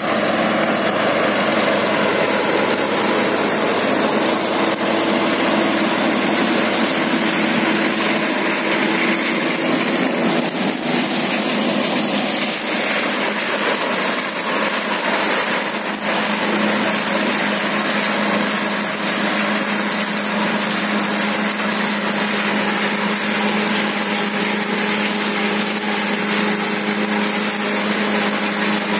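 A John Deere 5075 tractor's three-cylinder diesel runs steadily under load, driving a Happy Seeder whose spinning rotor chops rice straw and sows into the stubble. It makes a loud, continuous mechanical din, and the engine's tone shifts about halfway through.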